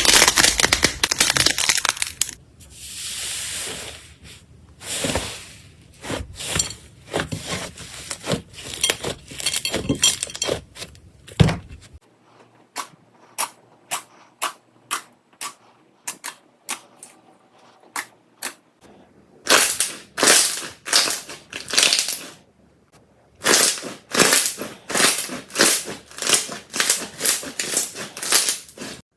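Slime being squeezed and pressed by hand, making dense crackling and crunching pops. About twelve seconds in the sound changes to sparse single clicks and pops, which build back into quick runs of crackly squishes near the end.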